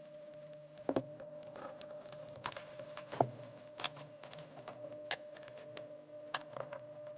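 Small rotary tool bits and accessories clicking and clattering as they are sorted and set into toolbox compartments, in irregular sharp taps. A steady faint hum runs underneath.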